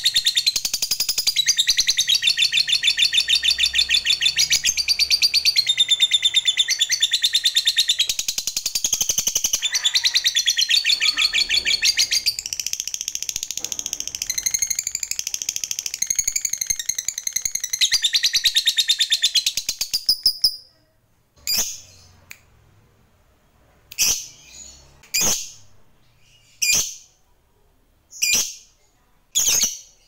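A lovebird singing its long 'ngekek': a fast, unbroken chattering trill of high notes. This is the extended song prized in fighter lovebirds. It breaks off about two-thirds of the way in, and about six single sharp chirps follow a second or two apart.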